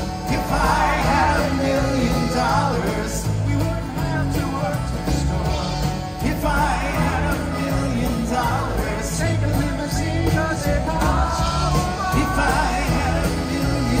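Live pop-rock band playing with singing, heard from among the audience in a large arena.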